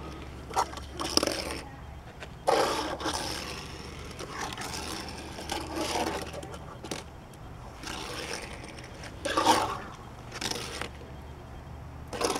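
A die-cast Hot Wheels Bone Shaker toy car pushed hard by hand across a smooth tabletop, skidding and spinning out in several short runs.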